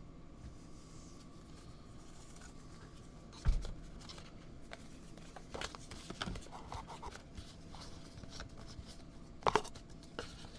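Trading cards and plastic card sleeves being handled: soft rustling and sliding as cards go into sleeves. There is one thud about three and a half seconds in and two sharp clicks near the end.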